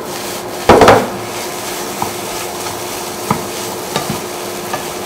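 Rice and char siu sizzling as they are stir-fried in a pan on an induction cooker, with a spatula scraping and knocking against the pan. The loudest scrape comes about a second in, and a few lighter taps follow.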